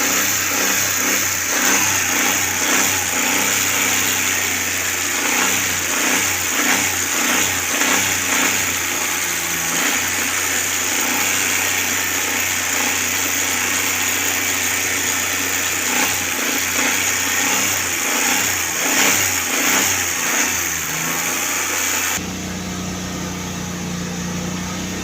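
Suzuki Cultus's carbureted three-cylinder engine idling and being revved, its pitch rising and falling repeatedly, as a test of whether the new ignition coil holds up without misfiring. About 22 seconds in it drops abruptly to a quieter, steady idle.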